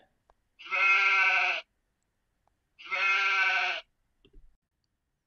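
A sheep bleating twice, two steady-pitched calls of about a second each with a short gap between them.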